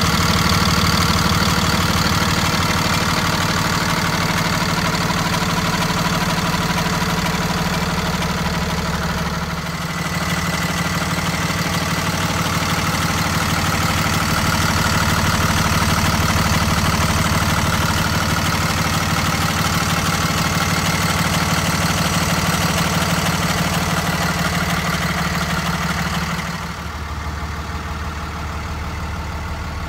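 PACCAR 6.7-litre six-cylinder diesel engine idling steadily with the hood open. About three quarters of the way through, it turns quieter and duller.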